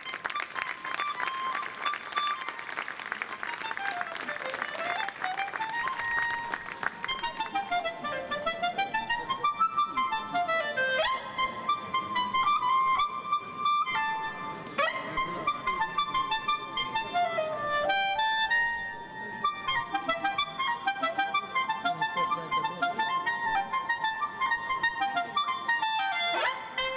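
Clarinet solo in Italian liscio dance style, played live. It opens with a rapid fluttering passage, then goes into fast runs of notes sweeping up and down.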